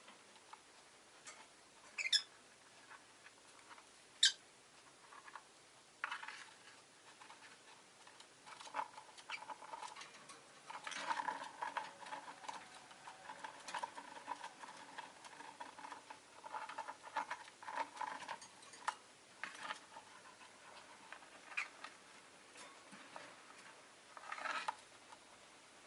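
Two rosy-faced lovebirds calling: a couple of sharp chirps in the first few seconds, then a long stretch of rapid, soft chattering in the middle, and one more chirp near the end.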